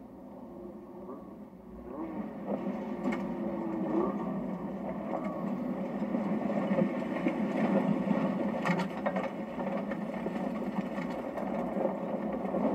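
Snowmobile engine running hard with a buzzy drone and some short rises in revs, muffled as if played back through a television speaker.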